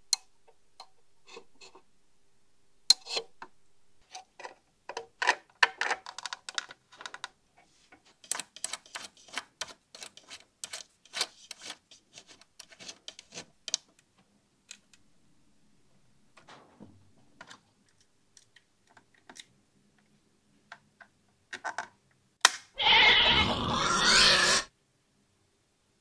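Small hand tools and metal parts being handled on an amplifier chassis: irregular clicks and taps, densest in the first half, then a louder noisy rasp lasting nearly two seconds near the end.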